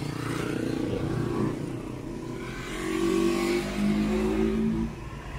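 A motor vehicle engine running. A low rumble is there throughout, and an engine tone grows louder about three seconds in, then drops away shortly before the end.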